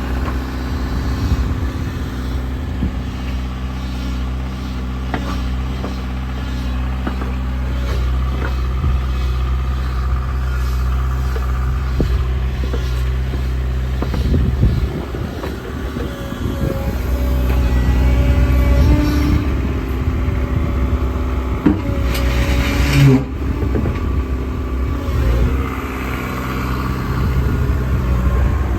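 JCB 55Z-1 midi excavator's diesel engine running steadily, with a louder stretch about two-thirds of the way through where the engine note shifts and a few knocks sound.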